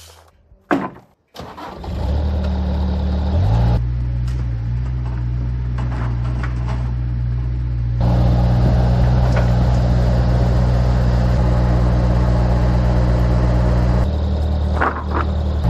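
An engine is started about a second or two in, then runs steadily, speeding up a couple of seconds later, getting louder about halfway through and easing back near the end.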